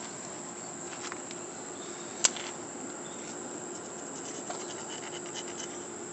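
A thin metal tool scraping and picking at the mud-caked action of a recovered muzzleloader rifle: light scratches and a few small ticks, with one sharp metallic click about two seconds in. Over it, a steady high drone of insects.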